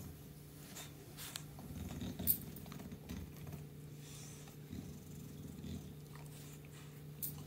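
English bulldog making low, rumbling grunts and noisy breaths while being massaged, with a few sharp clicks, the loudest about two seconds in.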